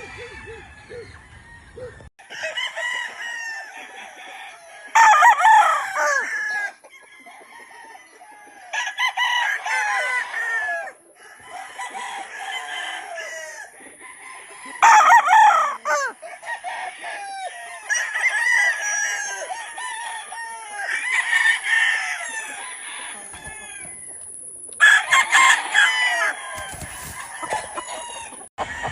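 Several gamefowl roosters crowing one after another, the crows coming every couple of seconds and sometimes overlapping, with clucking between.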